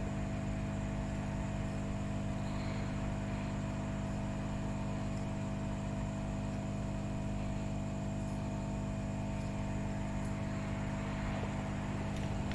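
Steady electrical hum and whir of running workbench equipment, made of several steady low tones over a faint even hiss.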